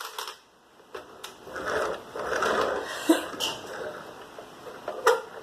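A person sneezing: a breathy build-up, then a sharp explosive burst with a hiss about three seconds in. Short sharp clicks come before it and near the end.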